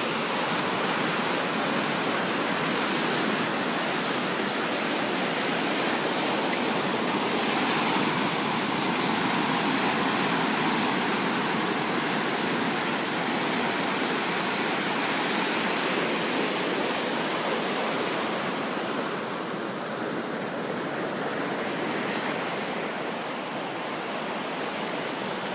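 Ocean surf washing on a beach: a steady rushing noise, easing slightly near the end.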